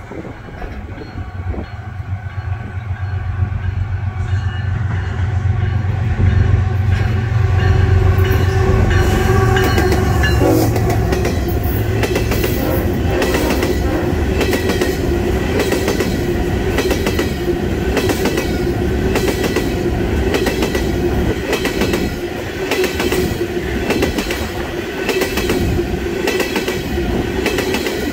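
A diesel freight locomotive approaching with a heavy low engine rumble, which gives way about ten seconds in to ballast hopper cars rolling past close by. The cars make a steady, rhythmic clickety-clack of wheels over rail joints.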